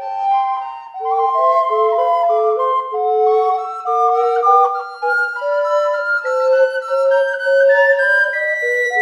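Soprano, alto and tenor recorders playing together in three-part harmony, a trio of overlapping held and moving notes, with a short dip about a second in.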